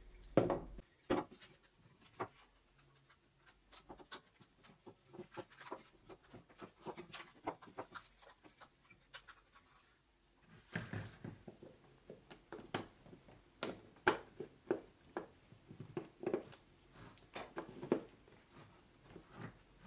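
Hands handling small 3D-printed plastic clock parts: a string of light clicks, taps and rubbing as the foil-lined rear cap is worked and then fitted onto the clock body. Two sharp knocks come in the first second, and the tapping grows denser and louder in the second half.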